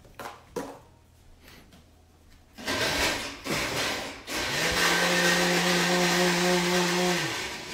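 Countertop blender switched on, blending ice into a mezcal and hibiscus drink: two short pulses, then the motor winds up to speed and runs steadily for a couple of seconds before it is switched off near the end.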